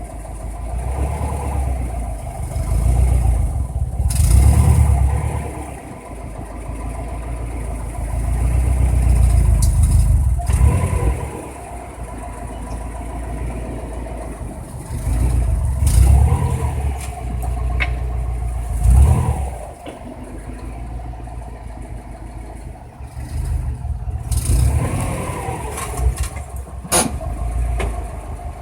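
Subaru WRX's turbocharged flat-four engine running as the car pulls away and slows again several times, its rumble swelling and fading. Every so often there is a sharp pop or click from the front end, set off when the car's weight shifts on stopping and pulling away; it is a new noise that appeared after a turbo replacement.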